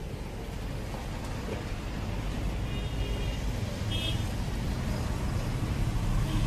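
Steady street traffic rumble that grows louder, with two short high-pitched tones about three and four seconds in.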